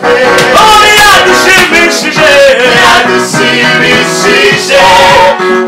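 Gospel choir singing a Kinyarwanda song live.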